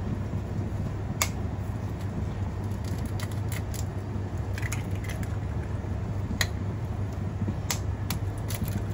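Eggs being cracked open by hand: scattered sharp taps and shell cracks, about eight to ten in all, over a steady low hum.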